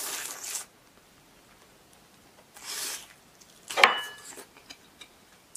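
Biting into a piece of grilled steak close to the microphone: a short rough tearing sound at the start and another a little before three seconds in, with quiet chewing between. A single sharp click with a brief ring comes about four seconds in.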